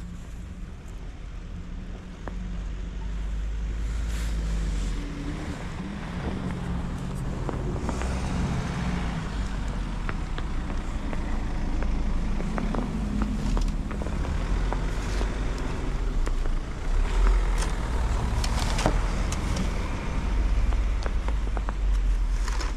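A car's engine and tyres on a snow-covered street, growing louder a few seconds in as it comes close and staying loud for most of the time, with scattered short crunches or clicks over it.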